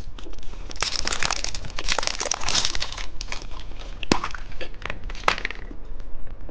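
Plastic candy packaging crinkling and tearing as it is unwrapped by hand, in a dense run of crackles and sharp clicks.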